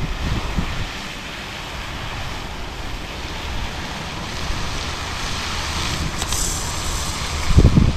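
Wind buffeting an action camera's microphone over a steady hiss, with low rumbling gusts at the start and again near the end, and a brief rise in high hiss about six seconds in.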